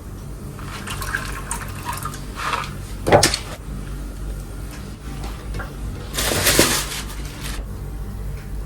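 Water pouring and splashing in short bursts, the longest and loudest about two-thirds of the way through, over a steady low hum.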